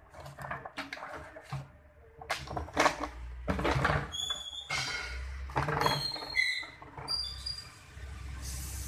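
Plastic washbasin knocking and scraping on concrete as kittens tip and roll it over, with the loose plastic container inside it rattling, and several short high squeaks.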